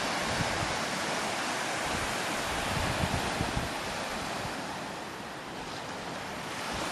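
Low sea surf washing steadily onto a sandy beach, an even hiss of breaking water, with wind gusting on the microphone.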